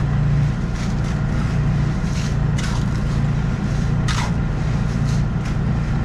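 An engine running steadily, a low drone throughout, with several short scrapes of a shovel digging into wet soil and gravel.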